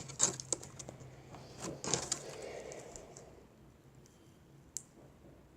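Putty being handled with glitter worked into it: a few sharp clicks and crackles in the first two seconds, a soft rustle, then one more click near the end.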